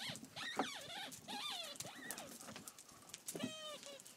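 Seven-week-old German Shepherd puppies whining and yelping in play: a run of short high-pitched cries in the first two seconds and a few more near the end, with small scuffling clicks of paws on gravel.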